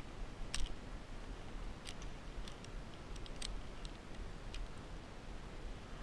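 Metal climbing hardware (carabiners and a mechanical rope device) clicking and clinking as it is handled on the rope, a handful of sharp irregular clicks over a low steady rumble.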